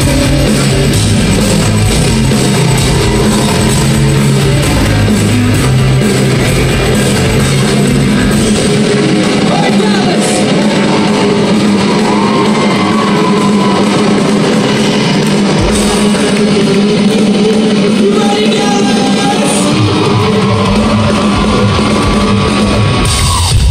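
Live rock band playing loud, with singing over guitar, drums and bass, heard from within the crowd. The heavy bass notes thin out about a third of the way in.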